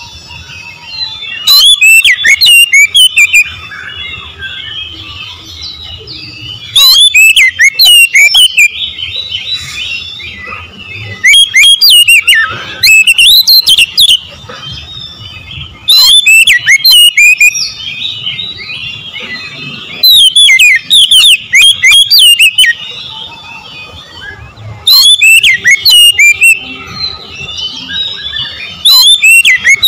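Oriental magpie-robin singing: about seven loud bouts of rapid, sweeping whistled notes, each lasting about two seconds, with softer twittering in the gaps between them.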